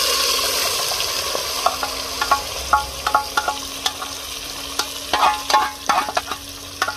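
Goat liver and vegetables frying in hot oil in a metal pot, a loud sizzle that slowly dies down. From about two seconds in come repeated short metallic clinks and scrapes as the bowl is scraped out against the pot.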